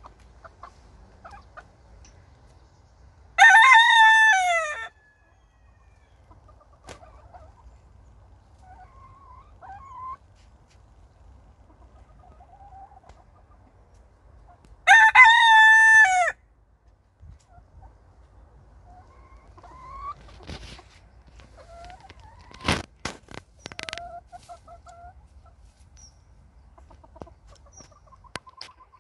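Wyandotte rooster crowing twice, about eleven seconds apart, each crow about a second and a half long and dropping in pitch at the end. Soft clucks and short calls from the chickens in between.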